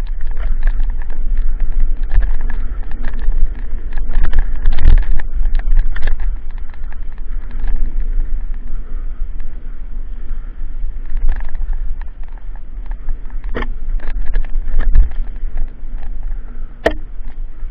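Mountain bike running fast down a bumpy dirt forest trail: a loud, steady low rumble of tyres on dirt and wind buffeting the microphone, full of rattles and clatters from the bike over bumps, with a few sharper knocks, the sharpest near the end.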